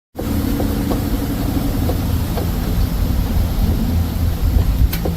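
Husqvarna Z254 riding mower's engine running steadily: a low, even rumble with light ticks. The sound cuts in abruptly at the start and has a sharp click near the end.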